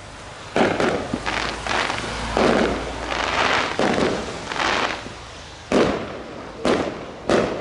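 Fireworks bursting in quick succession at a display: about ten sharp bangs, each fading away, some overlapping one another.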